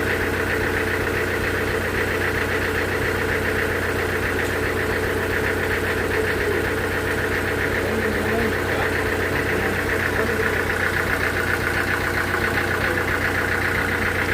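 Sawmill machinery engine running steadily at an even speed, with a fast regular beat and a constant hum.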